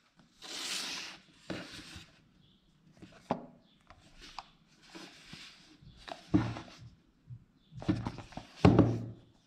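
Hands handling and turning a small cardboard Apple Magic Mouse 2 retail box: rustling and brushing on the packaging, broken by several knocks and thunks, the loudest about three seconds in, midway, and near the end.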